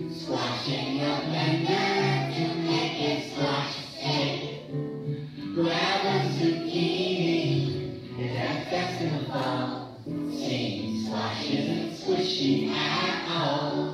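A children's choir singing a song together over instrumental accompaniment.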